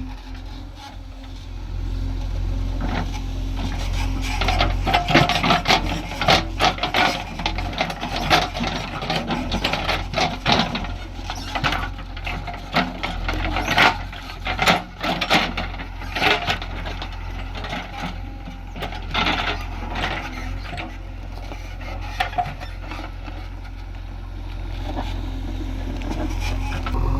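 JCB backhoe loader at work: its diesel engine runs steadily under a dense spell of irregular scraping, knocking and clattering as the bucket works the ground, which thins out near the end.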